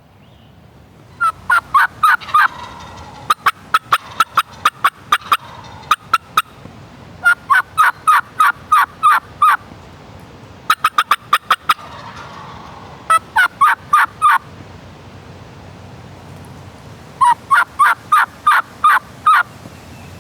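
Wild turkey gobbler gobbling loudly at close range, about six rattling gobbles in quick succession with short pauses between them.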